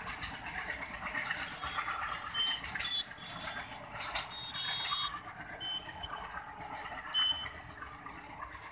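Passenger train running away down the track, its distant running noise slowly fading, with several short high-pitched beeps or chirps over it.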